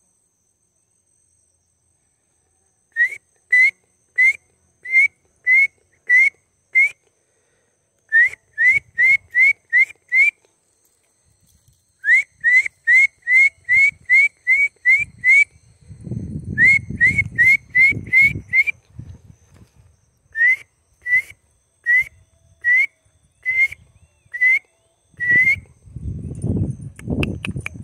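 Short rising whistled notes, repeated two or three a second in runs of six to nine with pauses between the runs. Low rustling noise comes in around the middle and again near the end.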